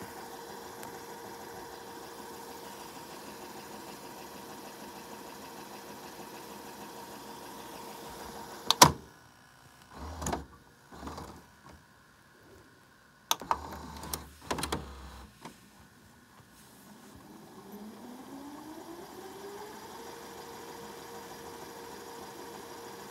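VCR tape mechanism: a steady motor whir, then a loud click about a third of the way in as it stops. Short clunks and whirs of the cassette mechanism follow, with another click. Near the end a motor whine rises in pitch and settles into a steady whir as the tape spins back up.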